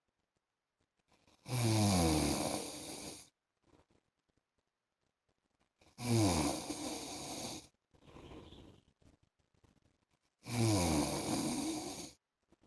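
A man snoring in his sleep: three loud snores about four and a half seconds apart, each under two seconds long and falling in pitch, with a soft breath between the second and third.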